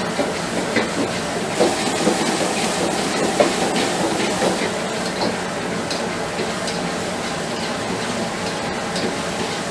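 Chinese restaurant kitchen noise: a steady hiss with many small clinks and taps of cooking utensils scattered through it.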